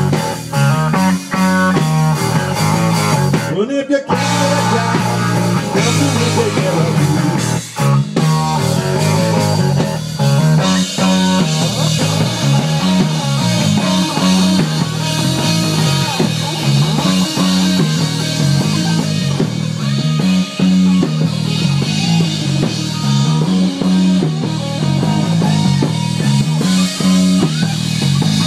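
Live rock band playing amplified guitars over a drum kit, loud and continuous, with a brief stop about four seconds in.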